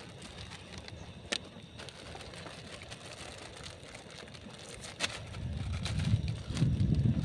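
Wind buffeting the microphone, rising to a loud low rumble from about five seconds in. Over it, a few light clicks and crinkles from a plastic instant-noodle packet being handled and torn open.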